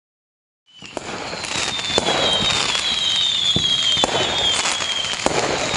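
Fireworks sound effect fading in quickly under a second in, marking the countdown reaching zero: dense crackling with sharp bangs and several high whistles that fall in pitch.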